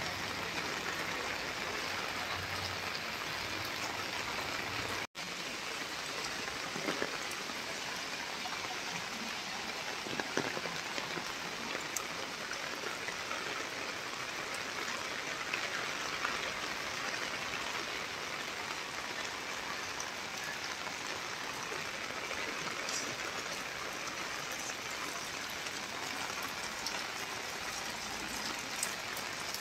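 Steady heavy rain falling on wet pavement, an even hiss with scattered drip ticks. A low steady hum sits under the rain for the first five seconds, and the sound cuts out for an instant about five seconds in.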